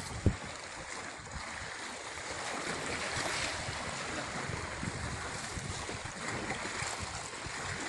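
Steady rush of shallow river water flowing over stones, with irregular low rumbling of wind on the microphone and a brief knock just after the start.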